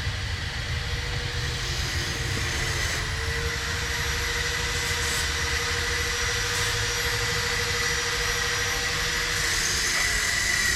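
A steady machine-like running noise with a constant hum, briefly dipping about three seconds in and again near the end.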